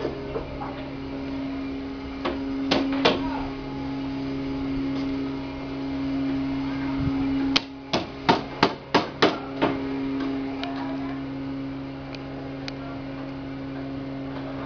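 Hammer blows on wood in a wooden-boat shipyard: three knocks a few seconds in, then a quick run of about seven blows over two seconds near the middle. A steady low machine hum runs underneath.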